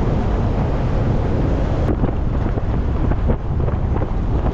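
Heavy wind buffeting the microphone over the rumble of a vehicle driving, steady and loud. The sound changes abruptly about two seconds in.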